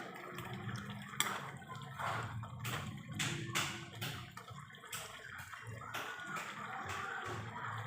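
Pork cooking in a pan: irregular pops and crackles over a steady hiss of sizzling and bubbling, with a steady low hum underneath.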